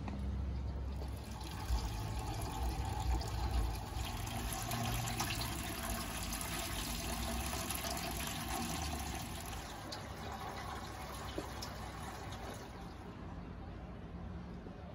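Water pouring steadily from a garden water-feature spout and splashing into a basin. A low rumble sits under it over the first few seconds.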